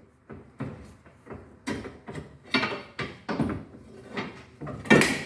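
Pry bar levering a car's front lower control arm out of its mounts: a series of metal knocks and scrapes, about one or two a second, the loudest near the end.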